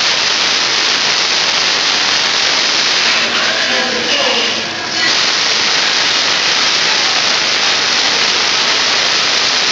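Tesla coil sparks striking a metal sphere: a loud, continuous sizzling crackle of electrical discharge that drops out for about a second around four seconds in, then starts again.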